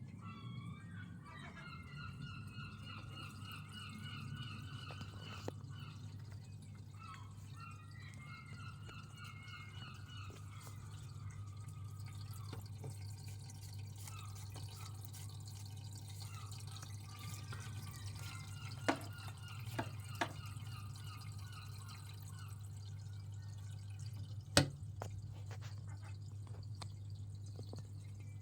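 Seagulls calling in drawn-out, wavering runs, three times, over a steady low hum, with a few sharp clicks near the end.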